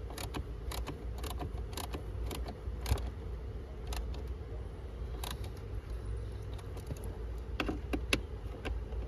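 Irregular metallic clicks and taps, a tool and screws being handled while a new blower motor is fitted in place, over a steady low rumble.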